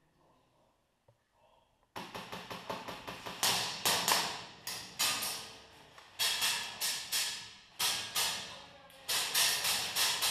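Rapid bursts of airsoft gunfire, sharp clicks and BB impacts echoing in a hard-walled room. They start suddenly about two seconds in and come in repeated clusters.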